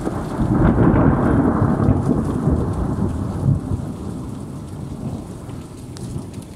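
Thunder from a nearby lightning strike: a deep rumble that swells over the first second or two, then slowly fades away.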